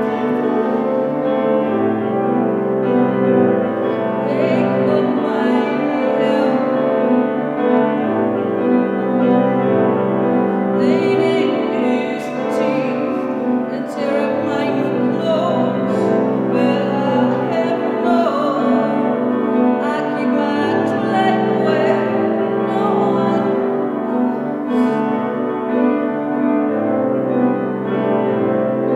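A woman singing over her own piano accompaniment of long held chords.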